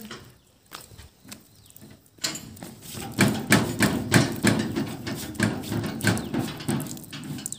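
Rapid, irregular knocking and clattering, several knocks a second, starting about two seconds in.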